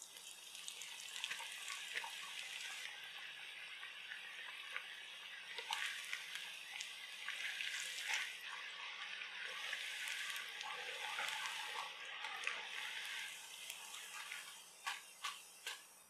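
Breadcrumb-coated cauliflower florets deep-frying in hot oil: a steady, crackling sizzle that eases off after about fourteen seconds. A few sharp clicks follow near the end.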